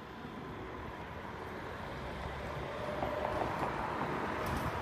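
A vehicle engine running steadily, with wind noise on the microphone; the sound grows a little louder, and faint steady tones come in about three seconds in.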